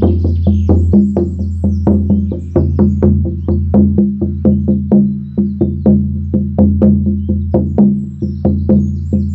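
18-inch hair-on horse skin shamanic frame drum beaten with a firm beater in a steady rhythm of about four strikes a second, each stroke leaving a deep ringing boom that carries on beneath the next.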